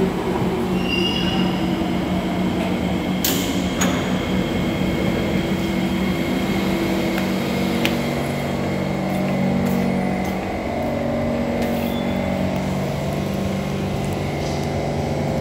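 Metro train running, a steady electric hum with low tones that shift in pitch after about ten seconds. A couple of sharp clicks about three and a half seconds in.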